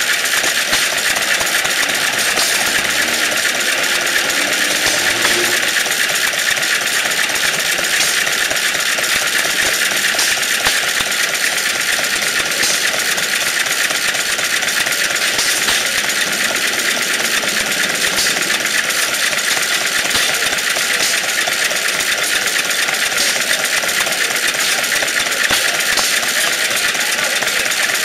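Antique single-cylinder hit-and-miss stationary gas engine running steadily on its spinning flywheels, with faint knocks now and then. It is heard over a steady hiss.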